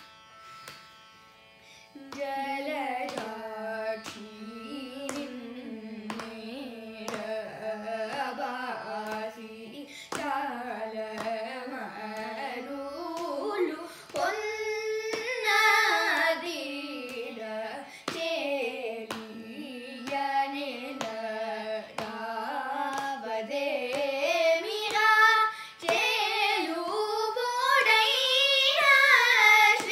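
Two children singing a Carnatic varnam in raga Hamsadhwani together, keeping the tala with regular hand slaps on their laps. The singing comes in about two seconds in, after a short pause where only a faint steady drone is heard.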